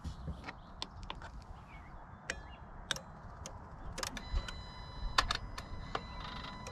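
Irregular light clicks and knocks from handling a portable jump starter and its clamps on a Jeep's battery, and from about four seconds in a steady high electronic tone.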